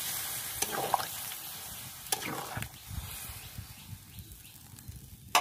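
A spatula stirring watery potato curry in a metal wok: scrapes and light clinks against the pan a few times, over a steady soft hiss.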